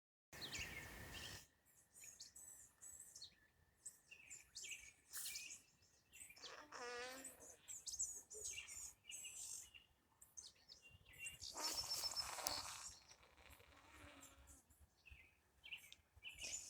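Small birds chirping and twittering in many short, high calls, faint overall. About seven seconds in there is a brief, bending vocal sound from a young child, and near twelve seconds a louder noisy burst.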